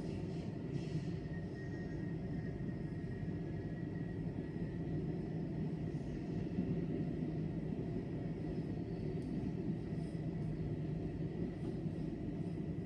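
Railway station ambience: a steady low engine-like rumble. A faint high steady tone fades away over the first five seconds or so.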